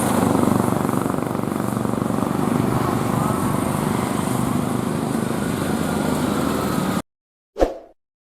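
Heavy vehicle engine, a passing bus, running steadily on the road. About seven seconds in the sound cuts off suddenly, and a single brief loud thud follows near the end.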